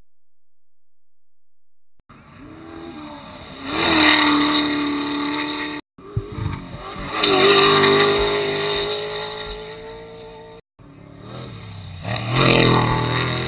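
Unlimited-class desert race trucks' engines revving hard as they pass at speed toward the jump, three passes in a row, each rising in pitch and then holding high as it fades, with abrupt cuts between them; the sound starts about two seconds in.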